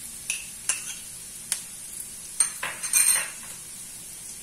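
Diced onions sizzling in oil in a nonstick wok, with several sharp clicks of a metal spoon tapping against a small bowl as chopped garlic is scraped into the pan; the loudest clatter comes about three seconds in.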